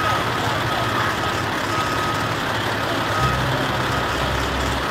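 A vehicle's backup alarm sounding short high beeps about once a second over steady outdoor engine noise. A deeper engine hum comes in about three seconds in.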